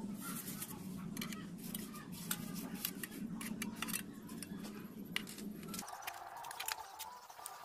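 Wet cement mortar being scooped and pressed with a small trowel into a steel pot: scrapes and light clicks of the trowel and mortar against the metal. A steady low hum runs underneath and cuts off abruptly about six seconds in.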